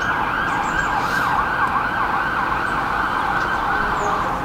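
Emergency vehicle siren: a wail that has climbed to its top pitch breaks into a fast up-and-down yelp, then dies away near the end.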